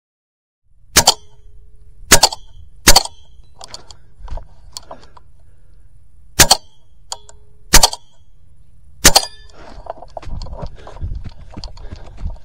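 Edgun Leshiy 2 .25 calibre PCP air rifle firing six sharp shots at an uneven pace, some followed by a brief ringing tone, with quieter clicks between them. Near the end a rough scuffing noise builds.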